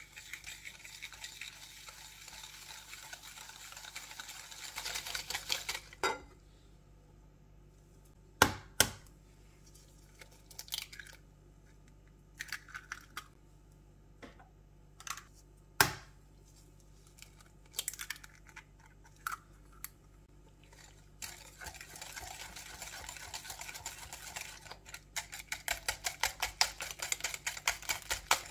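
A wire whisk beating melted butter and sugar in a ceramic bowl: a fast run of ticks against the bowl. It pauses for a few seconds of scattered sharp taps and clinks while eggs are cracked in, then the fast whisking starts again about three quarters of the way through.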